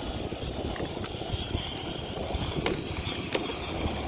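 Wind buffeting the microphone with a steady low rumble, with a few light clicks in the middle.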